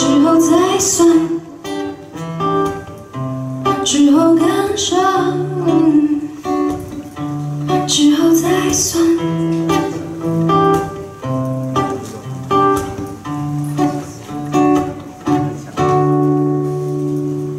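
A woman singing over an acoustic guitar. The voice wavers over plucked guitar notes at the start. The guitar carries on and settles on a held chord near the end.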